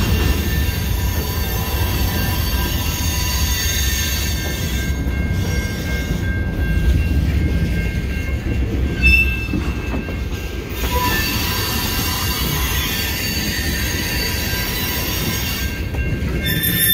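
Freight cars, covered hoppers and a tank car, rolling over the rails through a grade crossing: a steady low rumble of wheels with high, steady wheel squeal over it.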